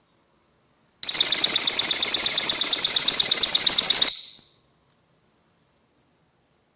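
A VOXON battery-powered magnetic door/window alarm sounds a loud, high-pitched siren that warbles rapidly up and down. It starts about a second in and stops suddenly after about three seconds.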